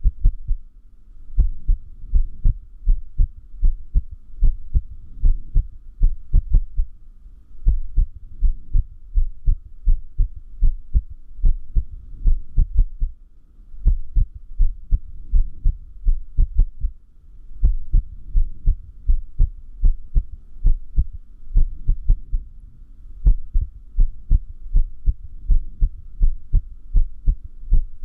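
Human heartbeat, close and clear, beating in an uneven rhythm with a few longer pauses between beats: an irregular heartbeat (arrhythmia).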